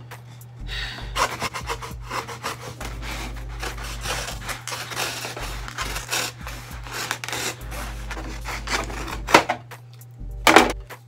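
A knife sawing back and forth through a cardboard paper towel tube in a quick, irregular run of rasping strokes; the thick tube is really hard to cut. Two louder knocks come near the end.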